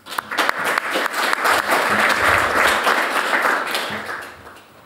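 Audience applauding: many hands clapping, swelling to a peak midway and fading out near the end.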